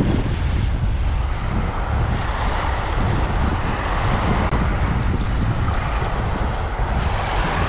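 Wind buffeting the microphone in a steady, loud rumble over the hiss of breaking surf.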